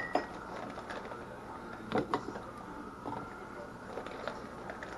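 A few light knocks and scrapes of a stainless measuring cup scooping raw chicken chunks out of a plastic container, the clearest about two seconds in, with softer ones later.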